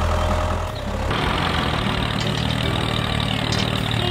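Tractor engine running at idle, a steady low hum whose tone changes about a second in.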